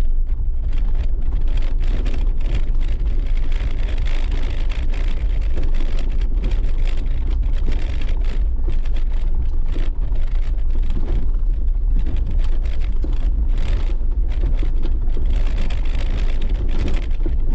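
A Jeep driving slowly over a rough, rocky dirt track, heard from inside the cab: a steady low rumble from the drivetrain and tyres, with constant small clicks and rattles as the tyres go over gravel and stones.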